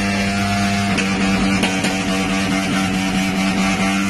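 Music playing over a loud, steady hum that does not change in pitch.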